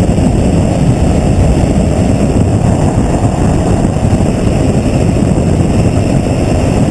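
Gyrocopter in flight: a steady, loud rush of engine, propeller and rotor noise mixed with wind blowing over an outside-mounted microphone, with no separate events.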